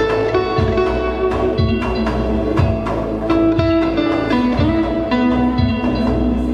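Live electronic trip-hop music: a drum-machine beat with a deep, pitch-dropping kick about once a second and crisp percussion hits, under sustained gliding melodic notes from electric guitar and electronics.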